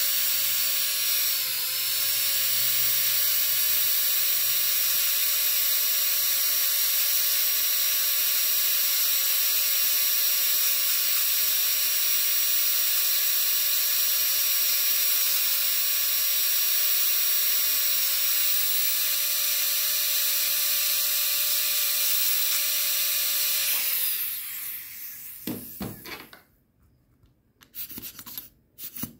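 Dental contra-angle handpiece with a bur spinning with a steady high whine while cutting the floor of a cavity in a plastic typodont molar. Its pitch dips briefly as the bur bites about a second and a half in. It spins down near the end, followed by a few light clicks of a metal probe checking the cavity depth.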